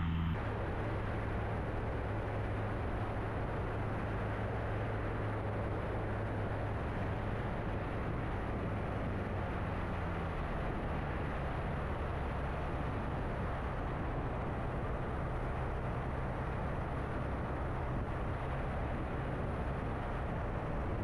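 Light aircraft's propeller engine droning steadily in flight, with rushing airflow, heard from on board. The low hum shifts slightly higher about halfway through.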